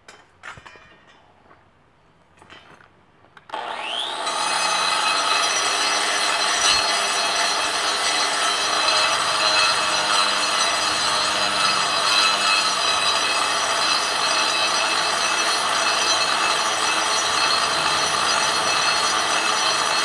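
A few light knocks, then about three and a half seconds in an angle grinder spins up with a rising whine and runs steadily at full speed, its disc grinding into a stone block.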